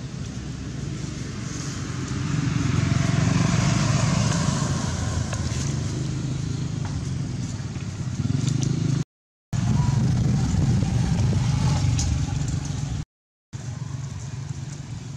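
Road traffic noise: a motor vehicle passes, swelling and then fading with a slowly falling engine note, over a steady low rumble. The sound cuts out for a moment twice, near the middle and near the end.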